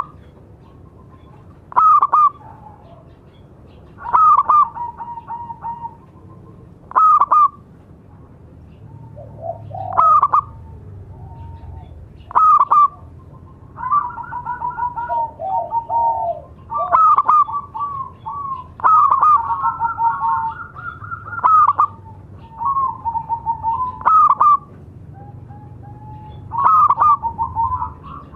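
Zebra doves (perkutut) cooing: a loud, clipped call every two to three seconds, each followed by a string of softer rippling coos. From about halfway through, the calls come faster and overlap.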